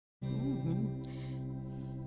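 Soft electric guitar accompaniment with steady held notes and one brief bend, coming in after a split second of dead silence at the start.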